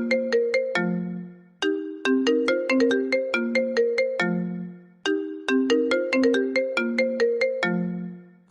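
iPhone ringtone playing: a quick run of short bright notes that ends on a longer low note and fades, the phrase repeating about every three and a half seconds.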